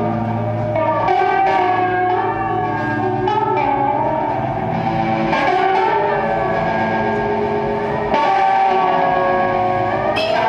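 A homemade box guitar and an electric guitar played through effects pedals: layered sustained notes that slide slowly in pitch, making a drone. A louder new note comes in about eight seconds in.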